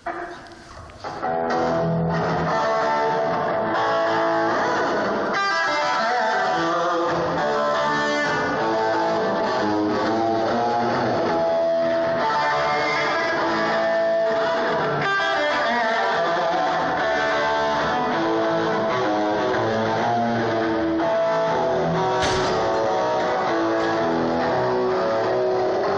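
A rock band's amplified electric guitar playing at a sound check, starting about a second in, with bass guitar underneath.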